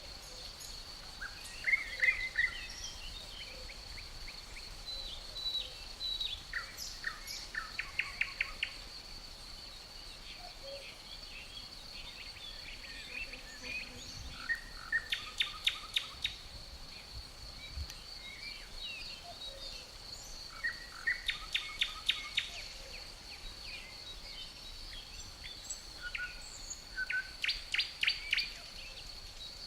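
A songbird sings the same short phrase four times, about every six to seven seconds, each ending in a quick run of sharp notes, over a steady high-pitched chirring of crickets.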